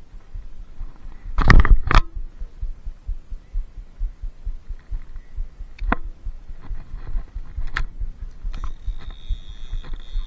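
Handling noise on a chest-worn action camera: shirt fabric rubbing against it and low thumps as the wearer moves. There is a loud rustling knock about a second and a half in, a few sharp clicks later, and a steady high whine that begins near the end.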